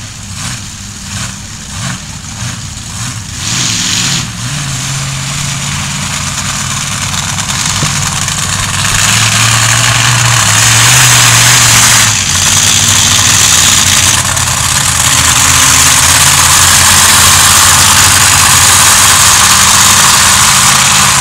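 Monster truck engines running and revving, getting steadily louder over the first half and then staying loud.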